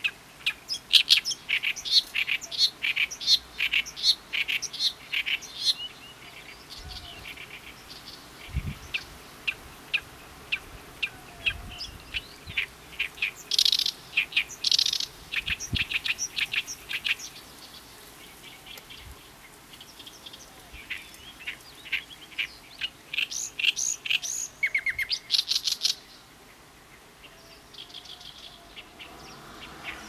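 Oriental reed warbler singing its gyo-gyo-shi song: bouts of rapid, repeated short notes, breaking off for a second or two between bouts.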